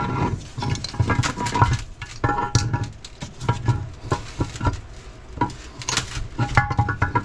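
Steel gears, shafts and parts of an NP205 transfer case clinking and clattering as they are handled, with quick irregular knocks and a few short metallic rings.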